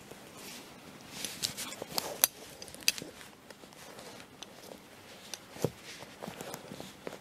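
A leather bridle cheek piece and its small metal hook-stud fastening being handled and worked loose through the keepers: soft leather rubbing with a scattering of light clicks, most of them between one and three seconds in.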